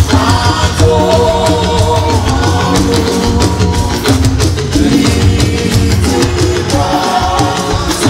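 Church choir singing a hymn together through microphones and loudspeakers, backed by a drum kit and percussion keeping a steady beat.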